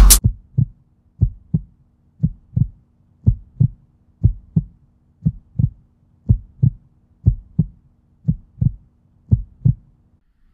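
Heartbeat-like pulse in the soundtrack: paired low thumps, about one pair a second, over a faint steady hum.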